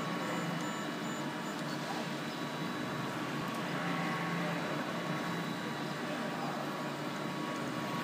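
BCN3D+ 3D printer running a print: a steady machine whir with thin, steady high whines, and lower stepper-motor tones that come and go as the print head moves.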